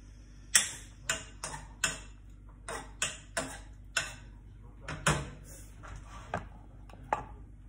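A utensil clinking and tapping against a small skillet as chicken and sauce are stirred: a dozen or so sharp taps at uneven intervals.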